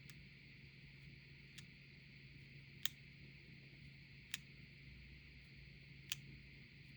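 Zoom button of an Insta360 Luna Ultra clicking under short taps: a few sharp, separate clicks about a second and a half apart, the loudest about three seconds in, over a steady faint hum and hiss. The clicks come from play in the button, which rattles each time it is pressed.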